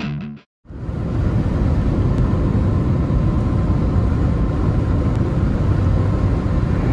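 Steady road and engine rumble inside a moving vehicle's cabin, fading in just after a distorted electric-guitar music track cuts off at the very start.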